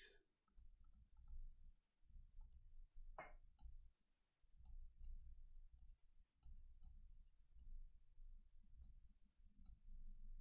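Near silence: faint room tone with scattered faint clicks, about one or two a second, and a slightly louder tap about three seconds in.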